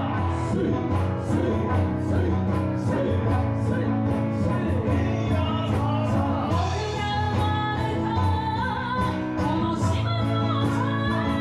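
Live Okinawan folk song: singing at the microphones over strummed acoustic guitar, with a steady beat.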